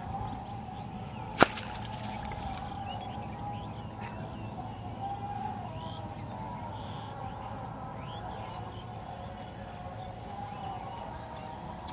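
Open-air rural ambience with scattered faint bird chirps, broken once about a second and a half in by a single sharp crack, the loudest sound.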